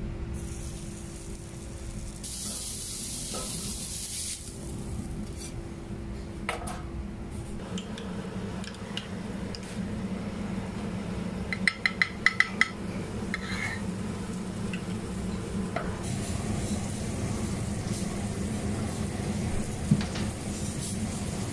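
Kitchen cooking sounds over a steady low hum: hot cookware hissing and sizzling as a flat-top griddle is scrubbed with a griddle stone and liquid, and a quick run of about five metal clinks about halfway through.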